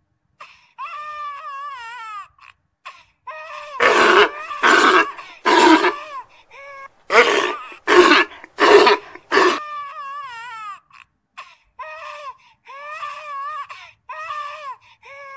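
Infant macaque crying: wavering, whimpering coos broken by harsh, loud screams, three about four seconds in and four more around eight seconds. These are the distress calls of a baby left behind by its mother.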